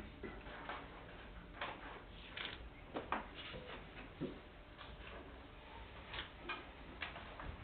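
Quiet room tone with scattered, irregularly spaced small clicks and knocks, the sharpest about three seconds in.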